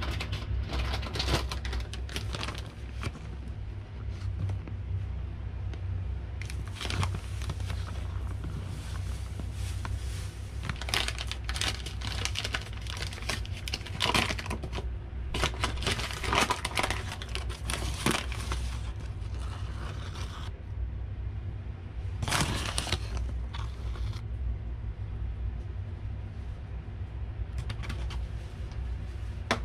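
Flour packaging crinkling and flour being poured into a stainless steel mixing bowl on a kitchen scale, in irregular rustling bursts with quiet stretches between them. A steady low hum runs underneath.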